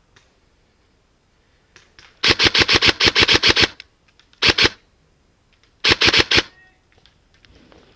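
Airsoft gun firing on full auto, close by: a long burst of rapid shots, then a short burst of about three, then one of about five.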